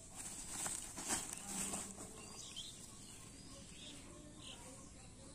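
Crinkly rustling of woven plastic cement sacks and their frayed strands being disturbed, loudest in the first two seconds. After that come a few faint, short high chirps.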